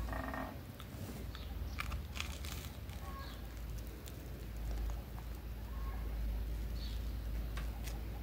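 Plastic wrapping crinkling and light crunching of crusty bread, with scattered small clicks over a steady low rumble and a few faint bird chirps.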